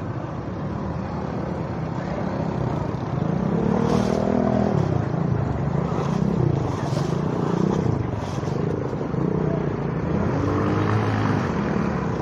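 A motor vehicle's engine revving up and down several times as it moves through knee-deep floodwater.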